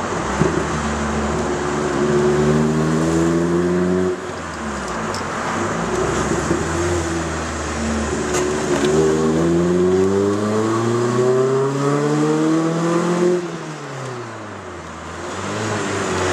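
Opel Kadett GSI's 2.0-litre eight-valve four-cylinder engine with a tuned exhaust pulling hard, heard from inside the cabin. The revs climb, drop sharply at a gear change about four seconds in, and climb again for a long pull. Near the end the driver lifts off and the revs fall away before settling.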